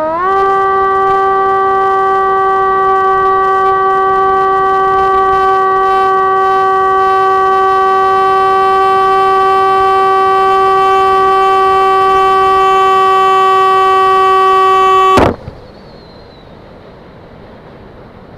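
Electric motor and propeller of an FPV model aircraft, heard through its onboard camera: a loud, steady, high whine that rises slightly in pitch just after the start and holds at a steady throttle through the climb. About 15 seconds in it cuts off abruptly as the throttle is chopped, leaving only a quiet steady hiss of air.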